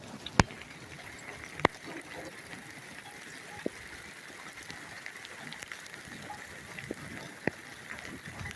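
Steady rain, with a few sharp single taps of raindrops striking the phone, the loudest about half a second in and another just under two seconds in.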